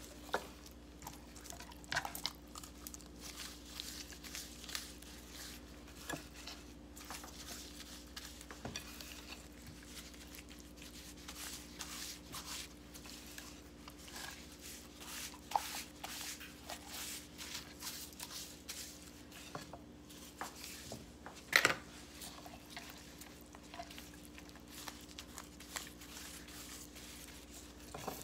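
Hands in plastic gloves rubbing seasoning paste into whole fish on a wooden cutting board: soft wet squishing and glove rustling with scattered light knocks on the board, and one sharper knock a little after 21 seconds in.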